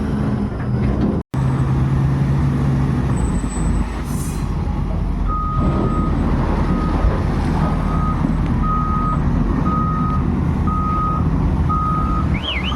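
Mining haul truck's diesel engine running with a steady low drone. From about five seconds in, its reversing alarm beeps at an even pace, roughly one beep every 0.7 s, the sign that the truck is backing up. A warbling alarm starts just before the end.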